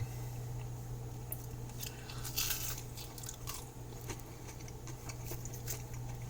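A person chewing a mouthful of crispy, butter-fried tortilla quesadilla, with scattered small crunches, the densest about two and a half seconds in.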